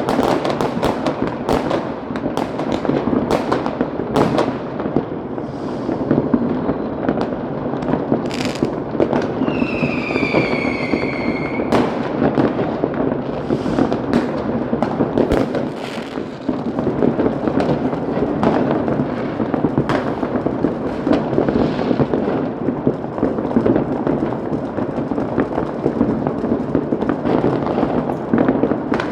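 Fireworks and firecrackers going off without pause, many overlapping bangs and crackles. About ten seconds in, a whistling firework shrieks for about two seconds, its pitch falling slightly.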